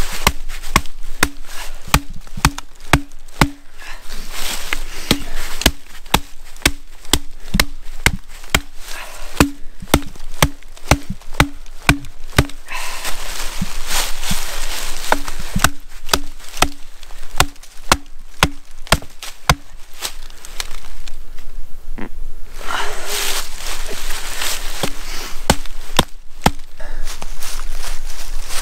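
Firewood being chopped, many sharp strikes at about two to three a second with short breaks. A low ringing note carries on many of the blows.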